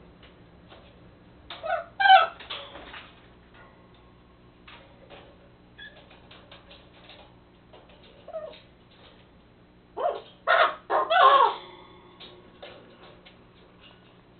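Pet raven, a white-necked × common raven hybrid, babbling to itself: a burst of voice-like sounds about two seconds in, a softer one past the middle, and a louder run of them about ten seconds in, with faint clicks between.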